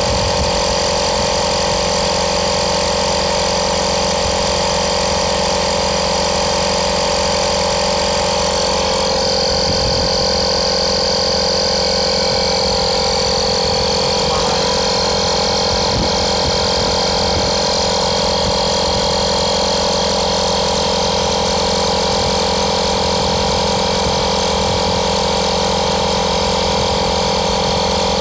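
Small electric air compressor from a Daihatsu tyre puncture repair kit running continuously, inflating a tyre after the sealant has been put in. A steady hum with a high whine on top that shifts slightly about nine seconds in.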